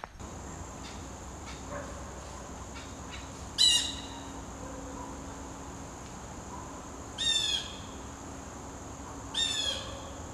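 A bird gives three short calls, each a quick downward slide in pitch, spread a few seconds apart. A steady high-pitched hum runs underneath.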